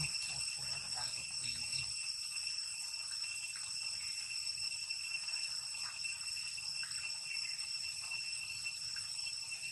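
Steady, high-pitched insect chorus: a constant ringing whine with no break, over a faint low rumble.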